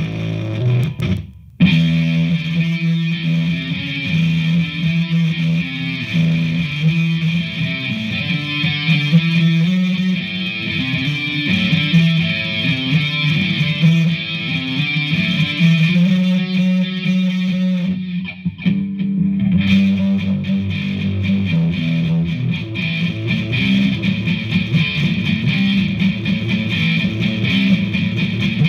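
Electric guitar (a Vintage V100 Les Paul copy) played through a user-made distortion patch on a DigiTech GNX3 multi-effects pedal into a Hughes & Kettner Attax amp, with a steady run of notes and riffs. The sound cuts out briefly about a second and a half in and thins for a moment about two-thirds of the way through.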